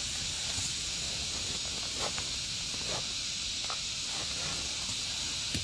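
Steady high-pitched hiss of insects droning in the forest, with a few faint rustles and steps in the leaf litter.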